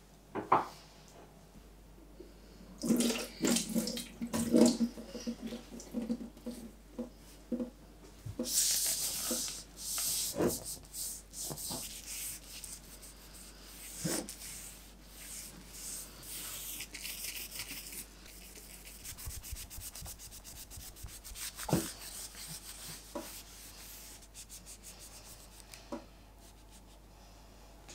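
A cloth rubbing and wiping over a hard window sill. Scattered knocks and clatter of things being handled run through it, with a louder rushing noise of a couple of seconds about eight seconds in.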